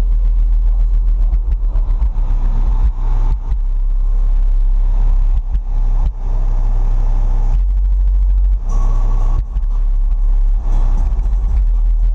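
Car audio system with twelve 12-inch subwoofers playing very loud, deep bass that dominates the sound, with brief drops every few seconds.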